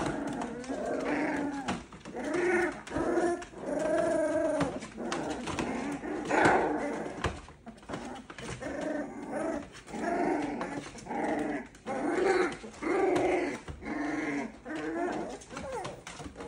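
Boxer puppies play-growling and yapping as they wrestle: a rapid string of short, high-pitched growls and yaps, one after another.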